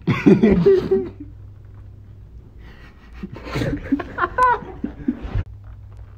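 A person's voice in two short wordless outbursts, one at the start and another about three seconds later, over a low steady hum.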